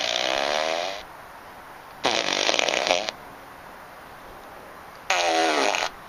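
An unidentified 'strange sound': three loud, rough, horn-like blares, each about a second long, whose pitch slides downward toward the end, with a steady hiss between them.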